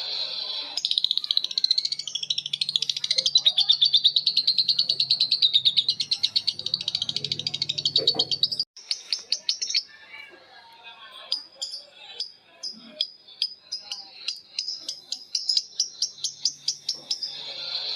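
Lovebird ngekek: a long, rapid chattering trill of fast repeated high notes. It breaks off abruptly about nine seconds in, gives way to sparser single chirps, and resumes as a fast trill near the end.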